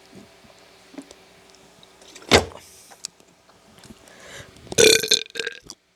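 A person burping loudly near the end, a long burp that breaks up into a few parts. A short, sharp, loud sound comes about two seconds in.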